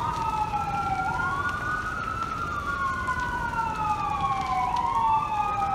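Two emergency-vehicle sirens wailing at once, out of step, each rising quickly and then falling slowly in long sweeps, over steady low background noise.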